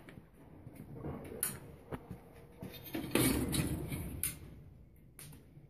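Scattered light knocks and clicks, with a louder rustling scrape about three seconds in.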